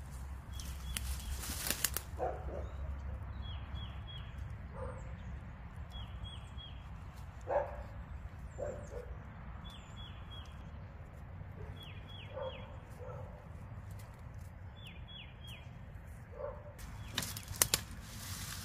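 Wire live cage trap being set among leaves and brush: rustling, with a few sharp metal clicks about 17 seconds in. Short high chirps in quick groups of three or four recur every couple of seconds, with lower short calls now and then, in the background.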